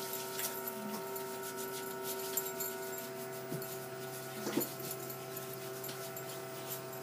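Hands rubbing in alcohol hand rub gel, with soft moist rubbing, small squeaks and light clicks, over a steady machine hum with several tones.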